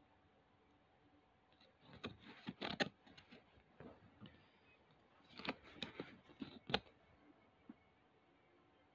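Faint handling noise: rustling and clicking from a card tag and packaging being handled, in two short bursts about two seconds in and again about five and a half to seven seconds in.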